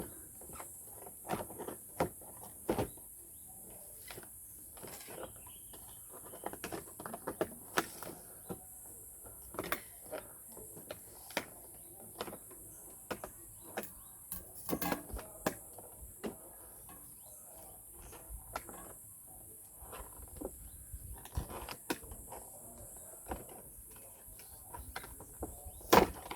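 Doll box packaging being cut and pulled apart by hand: irregular clicks, snips and crackles of plastic and cardboard, with short pauses between them.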